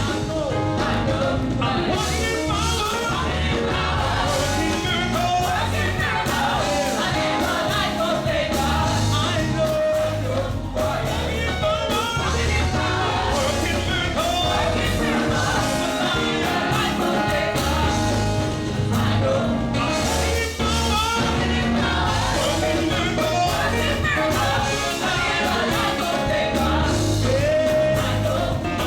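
Live gospel music: singers over a band with a steady bass and drum beat.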